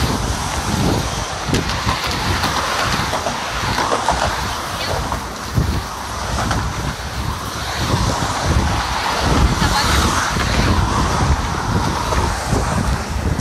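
Wind buffeting the microphone over a steady rumble of cars and traffic passing on the adjacent roadway.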